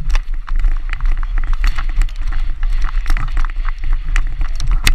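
Wind buffeting a helmet-mounted camera's microphone as the wearer moves on the field, with irregular clicks and knocks of lacrosse sticks, gloves and pads, and a sharper knock near the end.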